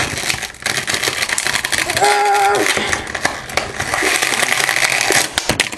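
Plastic blister and cardboard packaging of an action figure crinkling and crackling as it is worked open by hand, with a dense run of small crackles and clicks.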